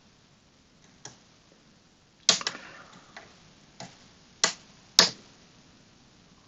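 Hook pick and tension wrench working the sliders of a Kwikset SmartKey Gen 2 slider lock: about six sharp clicks at irregular intervals, the loudest a little over two seconds in.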